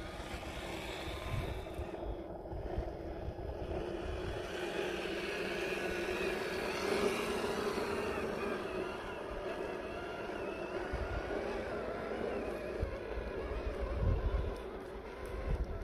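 RC rock crawler's 540-size brushed electric motor and geared drivetrain whining steadily as it crawls up a dirt slope, with gusts of wind on the microphone near the end.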